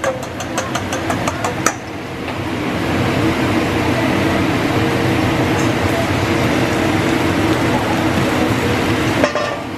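Sharp metal clinks of the chef's tools and steel bowl on the hibachi griddle for about the first two seconds, then a steady sizzle from beaten eggs poured onto the hot griddle, with restaurant chatter behind.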